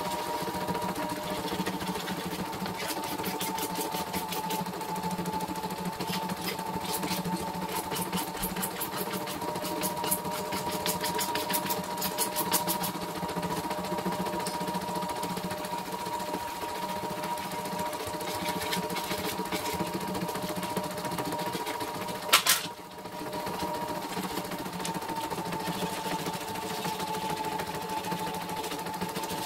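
CNY E960 computerized embroidery machine stitching, its mechanism running with a steady whine and hum and stretches of fast, even needle ticking. A single sharp clack comes about two-thirds of the way through, with a brief lull before it runs on.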